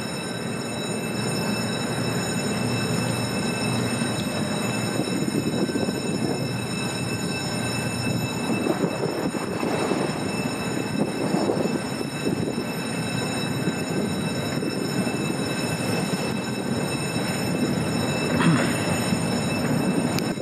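Wangerooge-class naval salvage tug's engines running as it moves through the lock: a dense, steady rumble that swells and eases, with faint steady high whines above it.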